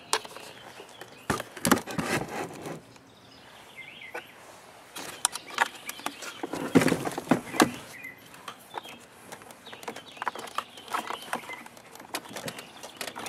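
Cardboard box and packing being handled during unpacking: irregular rustling, scraping and knocks, with louder clusters about two seconds in and around seven seconds.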